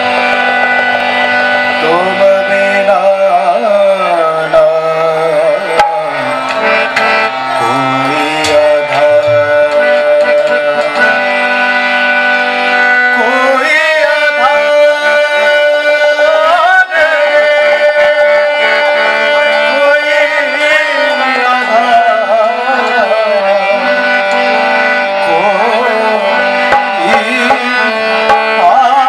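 Indian devotional song performed live: men singing a melody over a sustained harmonium, with tabla drumming.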